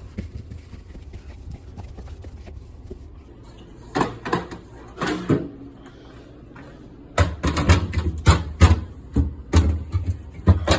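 Plastic refrigerator trays and shelves being handled and set back into place: two sharp knocks about four and five seconds in, then a quick run of thumps and knocks over the last few seconds.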